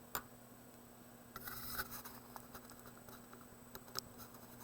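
Faint scratching and tapping of a pen on paper, with a sharp click near the start and a short stretch of scratching about a second and a half in, over a steady low electrical hum.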